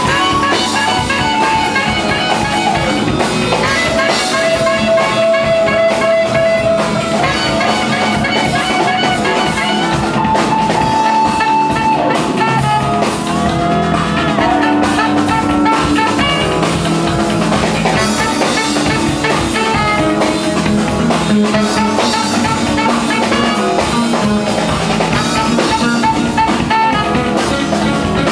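A band playing music live, with drum kit and guitar under a melody of long held notes.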